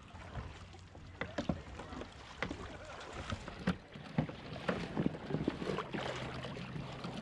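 Irregular knocks and clatters of gear being handled on a plastic fishing kayak, over a low, fairly steady hum.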